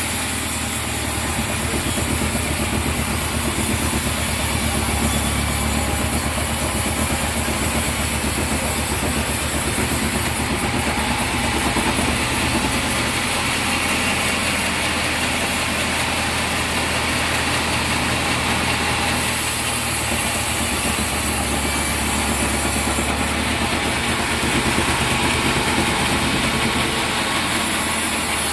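Sawmill machinery running steadily, with a constant low engine hum and a high hiss that comes and goes several times.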